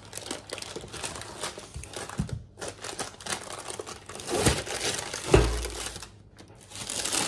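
Baking parchment crinkling and rustling as a baked pie is lifted out of its metal baking tin, with a dull thud a little after five seconds.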